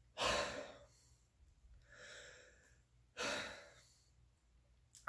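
A man breathing hard through his mouth, winded from exertion: two loud, puffing exhales about three seconds apart, with a fainter breath between them.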